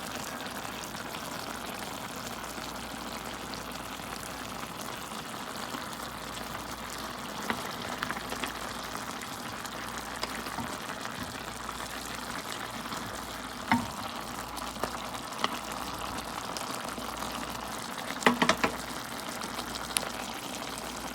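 Chicken adobo cooking in a pan of soy sauce and oil, a steady sizzling bubble throughout, with a few light knocks, several in quick succession near the end.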